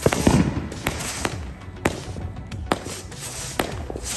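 Consumer aerial fireworks going off: a string of sharp bangs and pops at irregular intervals, the loudest right at the start.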